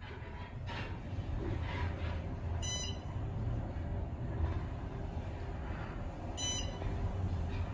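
Otis elevator car, which the uploader thinks is a Gen2, travelling upward: a steady low rumble inside the cab. Two short high beeps sound about four seconds apart as the car passes floors.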